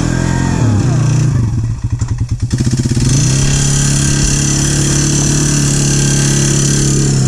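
ATV engine running at steady revs, dropping to a slow, lumpy idle about a second and a half in, then revving back up and holding steady.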